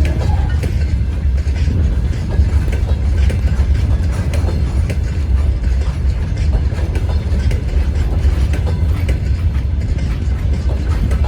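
Freight train wagons rolling past at low speed, their wheels clicking and clattering on the rails over a steady low rumble.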